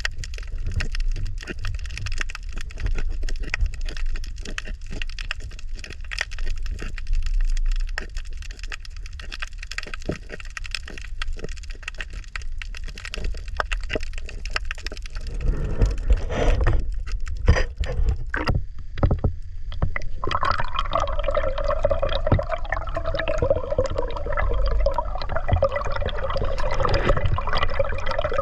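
Water sloshing and gurgling around the camera, with many sharp crackling clicks over a low rumble; about two-thirds through, a steady humming tone comes in.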